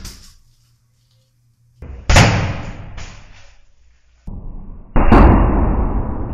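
Deep, drawn-out thuds of a clothes bundle, a box of clothes and a pillow hitting a tiled floor, slowed down for a slow-motion replay: one hit about two seconds in, then two more from about four seconds in, each dying away slowly.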